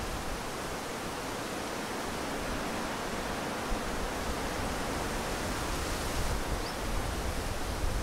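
Wind blowing through leafy trees: a steady rustle of tossing leaves, with an uneven low rumble beneath it.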